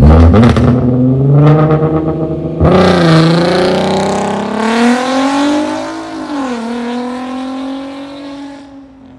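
Volkswagen Golf R32's 3.2-litre VR6 through an aftermarket DP exhaust, accelerating hard away. The revs climb, fall back sharply about two and a half seconds in and again around six seconds, then the sound fades as the car pulls away.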